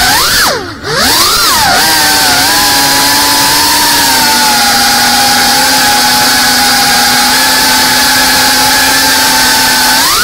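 Geprc Cinelog 35 FPV drone's motors and propellers whining, the pitch swooping up and down with quick throttle changes and briefly dropping off for the first couple of seconds, then holding a steady pitch before rising sharply at the very end.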